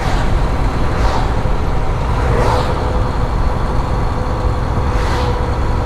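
Steady engine and road noise inside the cab of a moving Western Star 5700XE semi truck: a continuous low drone with soft swells of road noise.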